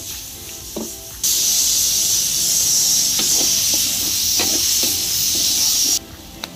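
Chicken fry sizzling hard in a steel kadai over a wood fire, a loud steady hiss as steam billows off the pan, starting abruptly about a second in and cutting off near the end. A spatula knocks and scrapes against the pan now and then.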